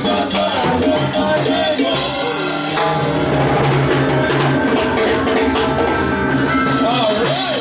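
Live salsa band playing, with timbales and congas driving the rhythm under the band.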